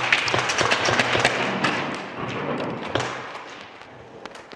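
Airsoft guns firing: a quick, irregular run of sharp cracks over a rushing noise, thinning out and fading over the last second or so.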